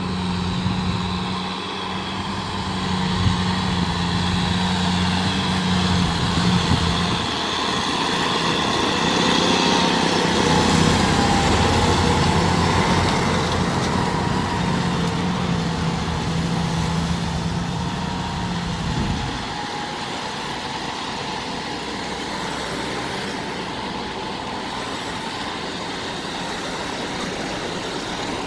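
Tractor diesel engine running steadily under load while pulling a rotary tiller through wet paddy mud. About two-thirds of the way through the engine note drops and the sound gets quieter.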